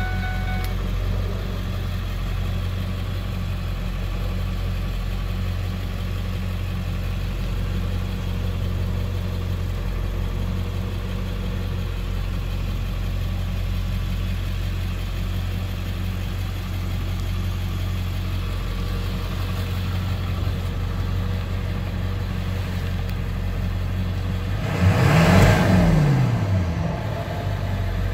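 2001 Ford Excursion's 7.3-litre Power Stroke turbo-diesel V8 idling steadily, heard from inside the cab. Near the end it is revved up once and falls back to idle.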